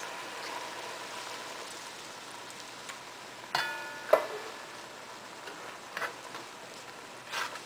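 Pan of beans simmering with a steady sizzling hiss as chicken broth is poured in, then stirred with a spoon; a couple of sharp clacks of the spoon against the pan about three and a half to four seconds in, and another near the end.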